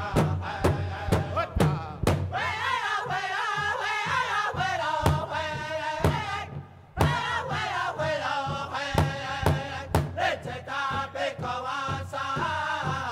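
Background music: a chanting voice over a steady drum beat of about two strokes a second. It drops out briefly about six and a half seconds in, then resumes.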